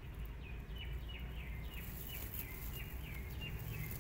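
A small bird calling in a quick series of short, high chirps, each sliding downward, about three a second, over a steady low background rumble.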